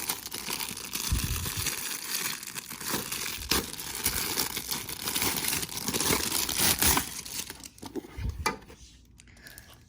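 Packaging being crinkled and rustled while a nested plastic storage box is unwrapped and pulled out, with a few light knocks from handling. It dies down near the end.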